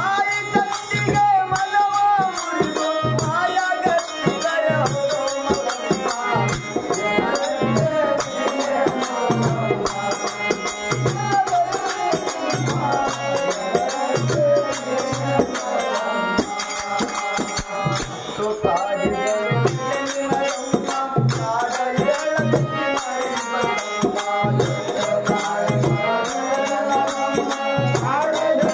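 Kannada devotional bhajan: a voice singing a wavering melody over a steady, regular hand-drum beat and constant jingling percussion.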